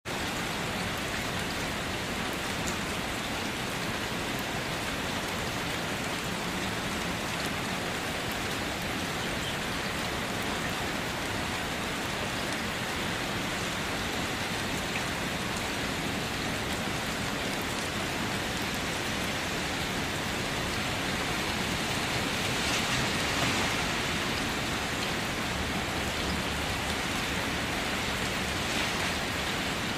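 Heavy rain falling steadily on the ground and surfaces: a dense, even hiss, growing a little louder for a couple of seconds about two-thirds of the way through.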